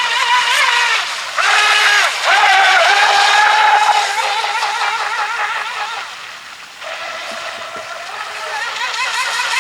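High-pitched whine of an RC boat's F2835-4000KV brushless outrunner motor spinning a small two-blade propeller. The pitch wavers up and down with the throttle; it is loudest in the first few seconds, drops off for a moment about two-thirds of the way in, then builds again.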